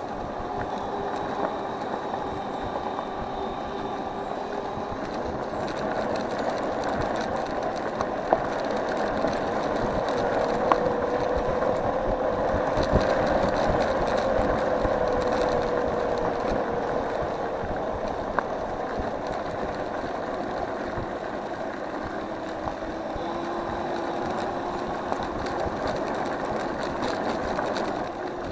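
Electric scooter on the move: steady tyre and road noise with a faint motor whine that drifts up and down with speed. Occasional short knocks and rattles come from the frame going over bumps.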